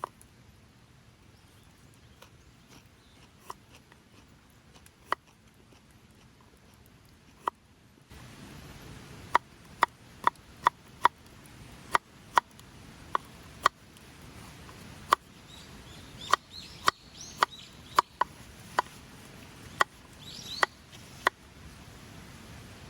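Chopping: a run of sharp, irregular strikes on wood, about one a second, after a few sparse taps at the start. A bird chirps briefly twice in the second half.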